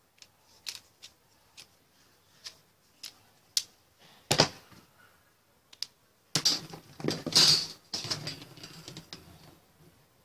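Thin sheet-metal strips being handled on a tiled table: light clicks and taps, a sharp knock about four seconds in, then a louder run of metallic clatter and scraping as a strip is picked up and aviation tin snips are set to it for cutting.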